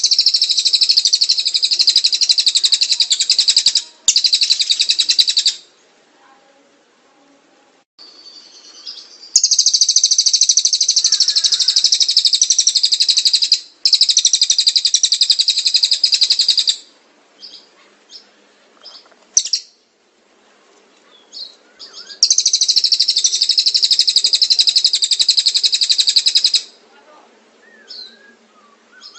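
Songbird singing long, rapid, high-pitched trills in phrases of about two to four seconds, five phrases in all, with pauses between them broken by a few short single chirps.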